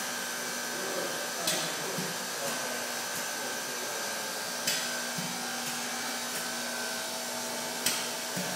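Automated book-binding machine running: a steady air hiss with a faint steady hum, broken by three sharp clicks from its mechanism about three seconds apart.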